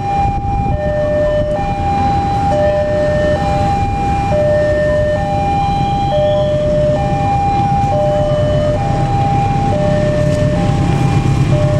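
Electronic warning alarm of a railway level crossing, alternating a higher and a lower tone about every two-thirds of a second. Beneath it a low rumble grows louder near the end.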